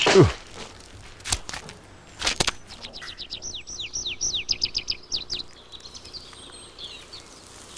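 Cartoon sound effects: a falling whistle-like glide at the start, two sharp clicks, then a quick run of short, high, downward-sliding chirps for about two and a half seconds, starting about three seconds in.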